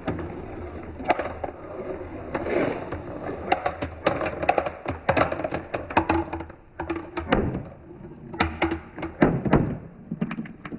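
Many glass marbles rolling along a marble-run track: a rolling rumble with frequent sharp clicks as marbles knock against each other and the track. The clicks come thickest about four to six seconds in and again near nine seconds.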